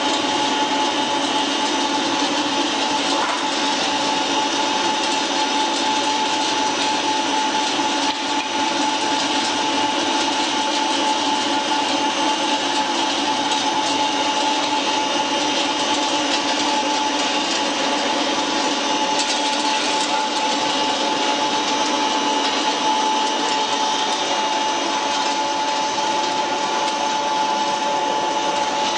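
YMKJ350 flat die wood pellet mill running steadily, a continuous mechanical whine with a grinding hiss.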